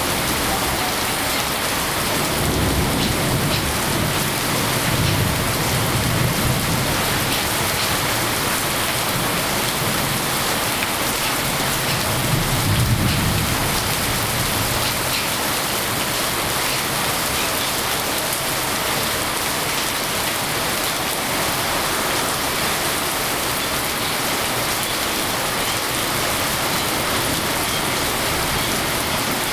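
Steady rain falling, with a low rumble about two seconds in and again around twelve seconds in.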